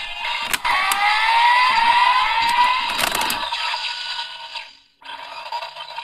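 DX Powered Builder Buckle toy on a Desire Driver belt, its handle pulled with a plastic click, setting off electronic sound effects through the toy's small speaker: rising whistling glides with a few more clicks. These fade out about five seconds in, and another electronic loop starts.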